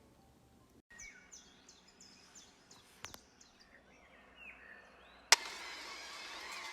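Small birds chirping faintly in short, high, falling calls, with a few soft clicks. About five seconds in, a sharp click, then a steady hiss.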